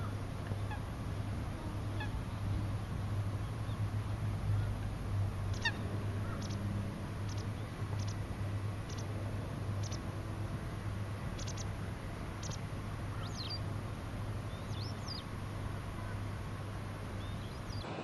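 Eurasian coot on open water giving short, sharp calls, repeated every second or so from about six seconds in, over a steady low hum.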